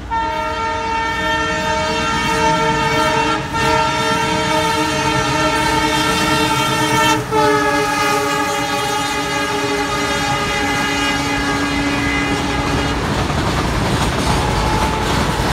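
Indian Railways goods train locomotive sounding its multi-tone horn in one long blast as it runs through at speed. The blast is broken briefly twice and drops a little in pitch about seven seconds in as the engine passes, then stops about thirteen seconds in, leaving the rumble and clatter of the freight wagons rolling past.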